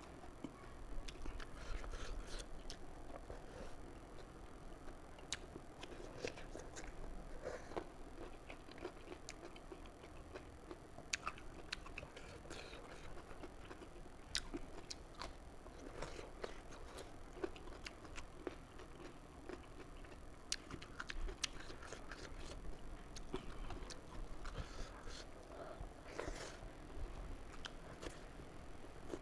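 Close-miked chewing and mouth sounds of someone eating fish curry with rice, with many short clicks and smacks scattered throughout.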